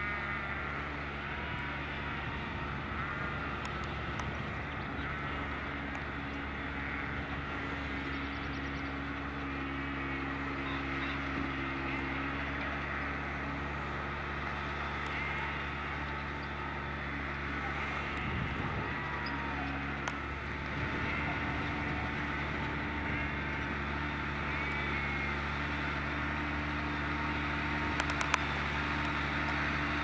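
New Holland T6050 tractor's diesel engine running steadily under load while pulling a four-furrow Kverneland plough. Faint bird calls come and go above it, and there are a few sharp clicks near the end.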